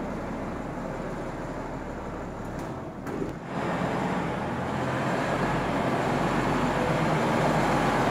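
Case 1370 tractor's six-cylinder diesel engine running as the tractor backs toward the microphone, growing louder from about halfway through.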